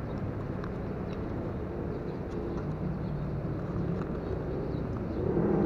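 Steady road and wind noise from a moving ride, with a motor vehicle's engine faintly heard through the middle.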